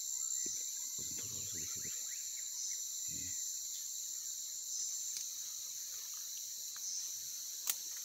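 Steady high-pitched chorus of insects, with a few brief low rustles about a second and three seconds in and a single sharp click near the end.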